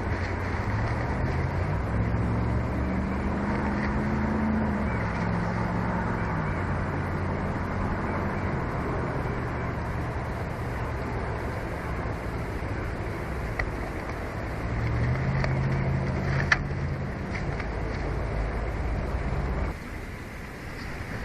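Distant motor-vehicle engine drone over steady outdoor wind noise, the engine hum swelling twice, about two seconds in and again around fifteen seconds, with a sharp click near the end before the sound drops off suddenly.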